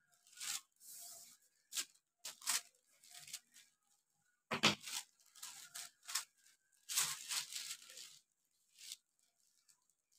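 Thin, crumpled kite paper crackling and rustling in irregular bursts as it is lifted and folded by hand, loudest about halfway through and again near the two-thirds mark.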